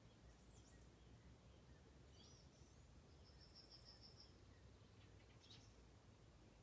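Faint songbirds calling: a few scattered high chirps and, about three seconds in, a short fast trill of repeated notes, over a low steady rumble of background noise.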